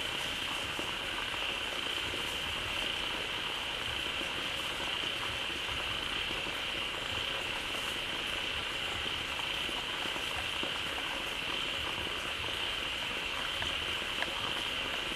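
Dense, continuous chorus of many frogs calling at once at a pond, filling it with sound after fresh water has flowed in. A steady high-pitched buzz runs over the chorus throughout.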